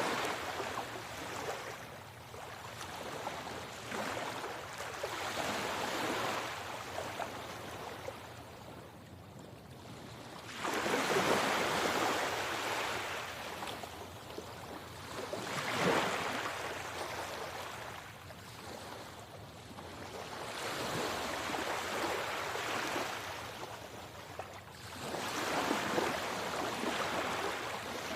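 Sea waves breaking and washing up the shore in repeated swells, one every four to six seconds. The loudest surge comes in suddenly about eleven seconds in.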